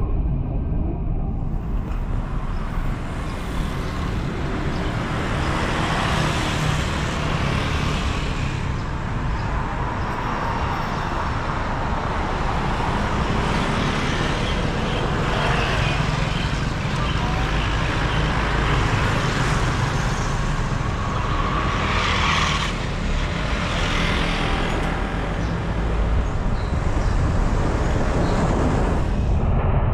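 Road traffic noise while driving: a steady low rumble of engines and tyres, with a hiss that swells and fades several times.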